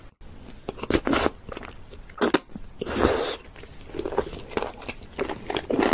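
Close-miked chewing of raw sea cucumber: a run of irregular, crunchy bites as the firm flesh is chewed.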